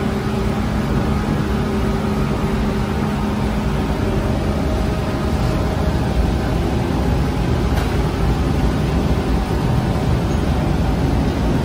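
Steady mechanical hum and rumble of bakery machinery running, a constant drone with a faint tonal hum.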